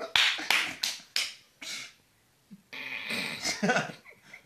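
A person laughing hard: a run of short, breathy, wheezing bursts of laughter in the first two seconds, then a longer stretch of voiced laughing a little before three seconds in.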